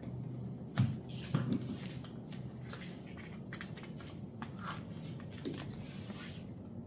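Handling noise from fastening a shoe's ankle strap: soft rustling and scraping with two short knocks about a second in, over a low steady hum.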